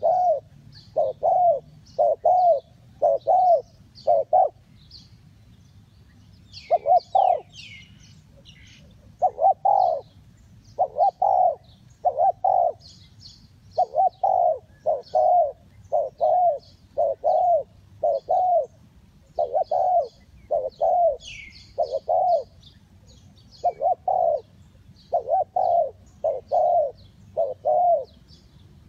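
Spotted dove cooing over and over, in short phrases of two or three low coos separated by brief pauses. Small birds chirp faintly at a higher pitch behind it.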